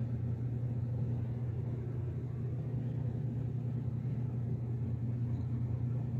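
Steady low background hum, even and unbroken.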